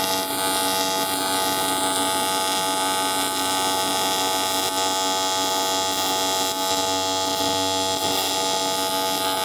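AC TIG welding arc buzzing steadily on oil-soaked cast aluminum, laying filler into a crack in a diesel engine's valve cover.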